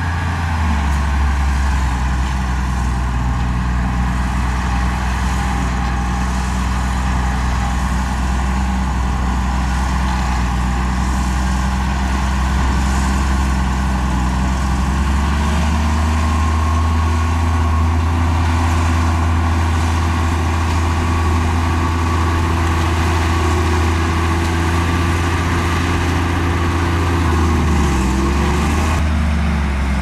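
Heavy diesel engine of earthmoving machinery running steadily, its revs rising about halfway through and holding higher, then dipping and picking up again near the end.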